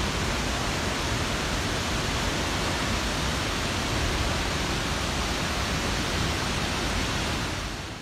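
Tall waterfall crashing into its plunge pool: a loud, steady rush of falling water that drops away just before the end.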